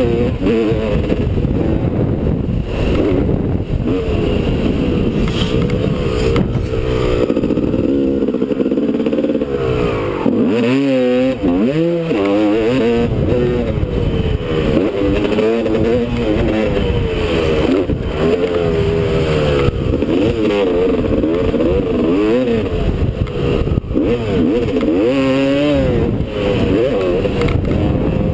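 Two-stroke Honda dirt bike engine under hard riding, heard from a helmet-mounted camera. The pitch rises and falls over and over as the throttle is opened and shut through the gears. About ten seconds in the revs drop off sharply, then climb again.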